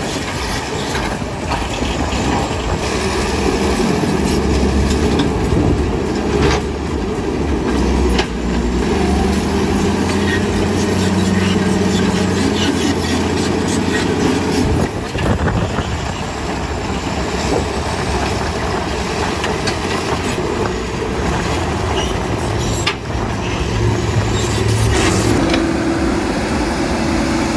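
Heavy tracked machine working: a diesel engine running under load, with metal tracks clanking and squealing and sharp knocks now and then.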